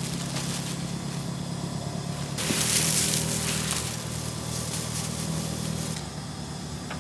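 Car engine idling with a steady low hum; partway through, a hiss rises for about a second and a half, then fades.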